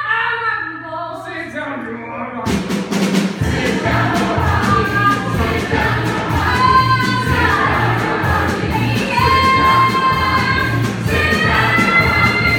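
Stage-musical cast singing a show tune as a chorus with a band. A full band with a steady beat comes in about two and a half seconds in, and the voices hold long notes over it.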